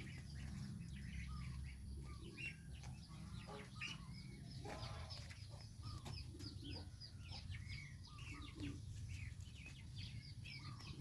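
A group of goslings peeping: many short, high chirps overlapping continuously, over a steady low rumble.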